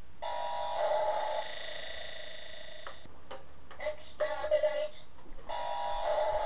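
Dalek-style electronic sound: a steady buzzing electronic drone stops about three seconds in. A short burst of choppy, ring-modulated Dalek voice follows, then the drone comes back near the end.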